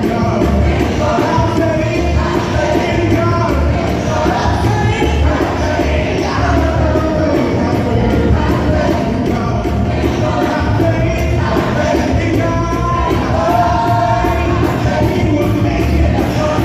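Youth choir singing a gospel song live, backed by a band with a steady bass beat.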